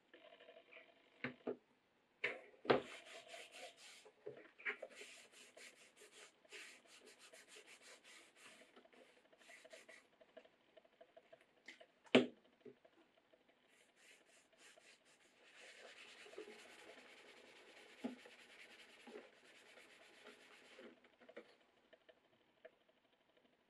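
Cloth rubbing over a leather knife sheath in quick repeated strokes, wiping on a leather finish, with a few sharp knocks, the loudest about twelve seconds in.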